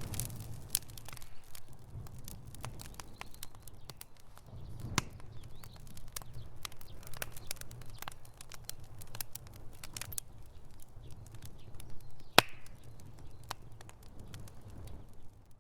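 Campfire crackling: irregular sharp pops and snaps over a low steady rumble of the burning wood, with a louder pop about twelve seconds in.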